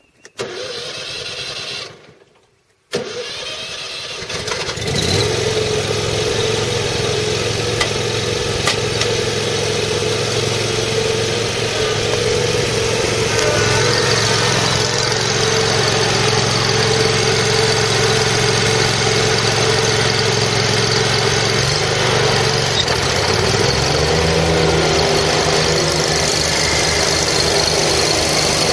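John Deere Z830A zero-turn mower's 27 hp Kawasaki V-twin engine starting: a first burst of sound that stops after about two seconds, then it starts again about three seconds in and settles into a steady run. A little over twenty seconds in, the engine speeds up slightly and runs on steadily at the higher pitch.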